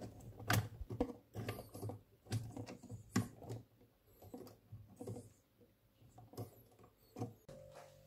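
Irregular light plastic clicks and knocks as a plug-in circuit breaker is handled and pushed back into its holder in a home consumer unit.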